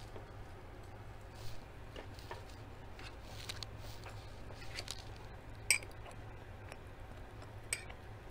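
Close-miked eating sounds: soft chewing and mouth smacks with scattered short clicks. Near the end a metal spoon clinks against a glass bowl.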